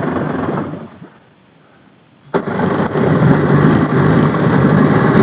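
Jet ski engine sound fades out about a second in, then the engine catches abruptly a little over two seconds in and keeps running steadily. It is being restarted after it had died because its fuel was turned off.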